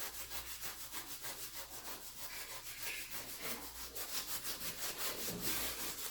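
Grout in tile joints being rubbed and scraped with a hand tool in quick, even back-and-forth strokes, about five a second, getting a little louder near the end.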